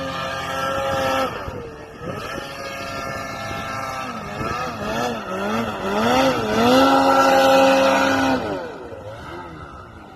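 Snowmobile engine revving up and down over and over, held at high revs at the start and again for a couple of seconds past the middle, then dying away near the end.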